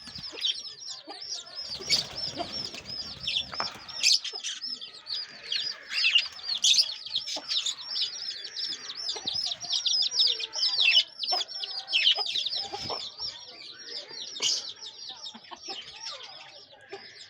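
Aseel chicks peeping continuously, a dense run of short, high calls several a second, with a few sharp knocks here and there.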